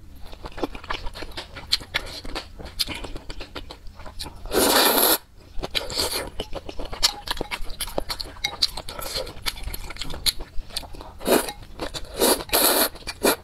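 Close-miked slurping of noodles from a bowl of soup, with a long loud slurp about five seconds in and several short ones near the end. Wet chewing and lip smacks click away in between.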